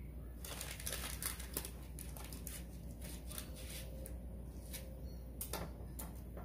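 Paper baking cups crinkling and a table knife clicking against a plate as tarts are handled: a run of small irregular clicks and rustles, thickest early and sparser later, with a few sharper taps near the end.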